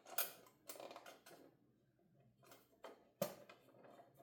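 Plastic drill bit case being handled and worked open: a series of light clicks and rattles, with a sharper snap about three seconds in.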